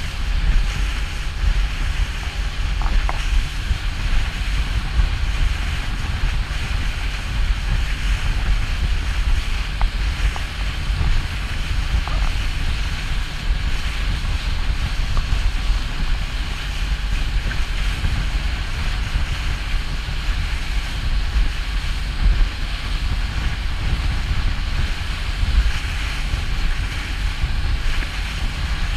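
Motorboat under way at speed: its wake rushing and spraying steadily behind the boat, with heavy wind buffeting on the microphone.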